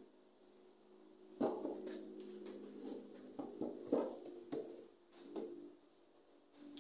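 Faint knocks and light scraping as a portrait print is handled and moved about on a wooden table: a sharp knock about a second and a half in, then several softer irregular taps.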